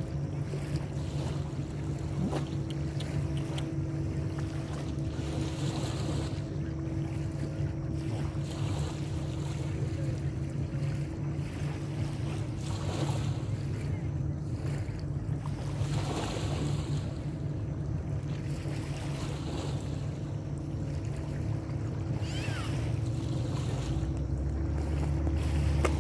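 A steady low engine drone with a haze of wind noise on the microphone; the drone grows louder and deeper about four seconds from the end.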